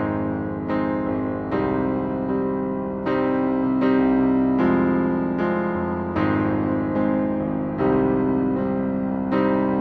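Solo piano playing a slow piece: a new note or chord struck about every second and a half, sometimes sooner, each left to ring and fade into the next.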